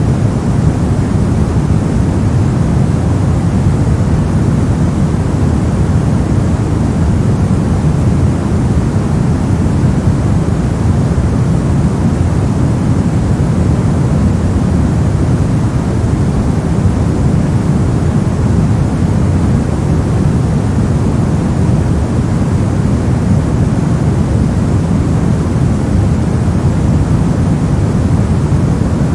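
Continuous steady noise from a sleep and study noise track, deep and rumbly, strongest in the low end and thinning toward the highs, with no change.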